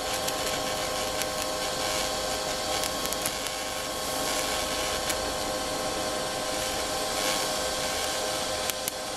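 TIG welding arc burning steadily: an even hiss with a steady hum underneath.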